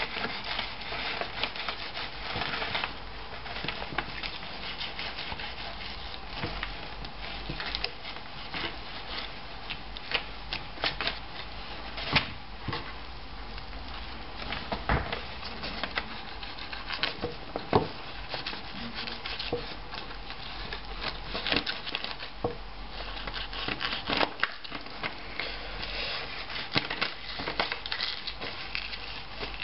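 Fillet knife scraping and tapping on a wooden cutting board while skinning crappie fillets, the blade run along between the meat and the skin: irregular scrapes and clicks, a few louder knocks.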